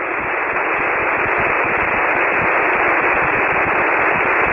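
Band-noise hiss from a ham radio receiver on a 40-metre single-sideband voice frequency between transmissions, swelling over the first second and then steady.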